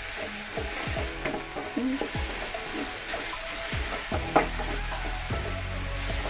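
Onion, tomato and green chilli sizzling in a metal kadai while a spoon stirs and scrapes against the pan, with a sharp knock a little past the middle.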